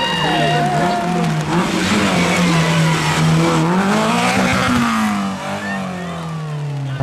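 Renault Clio rally car's engine revving hard through a hairpin as the car passes, the revs dropping and climbing with the gear changes. The engine note then falls steadily over the last two seconds.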